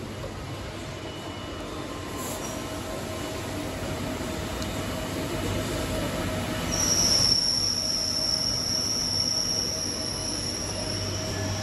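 Steady industrial machine hum from powered-up workshop machinery, joined about seven seconds in by a high-pitched whine that fades out near the end.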